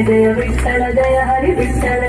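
Kannada devotional song in Carnatic style: a voice singing over held instrumental tones and a steady percussion beat.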